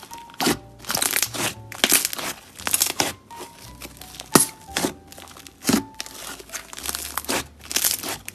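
Soft pink slime being squeezed and pressed by hand: irregular crackly squishes and pops, about two a second.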